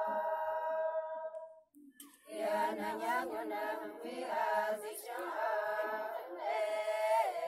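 A group of women singing a folk song together, unaccompanied, in long held notes. The singing breaks off briefly about a second and a half in, then starts again a little after two seconds.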